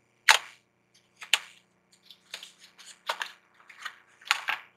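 Clicks and taps of a plastic makeup contour palette being handled, about half a dozen sharp separate knocks, the loudest near the start and near the end.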